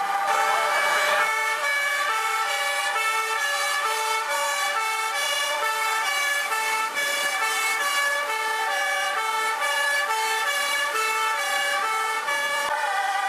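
Dutch fire engine two-tone sirens sounding, the pitch stepping between a high and a low note about twice a second, with more than one siren going at once.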